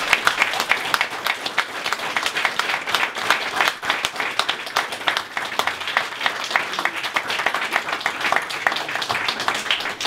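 A room of wedding guests applauding: many hands clapping steadily and unevenly.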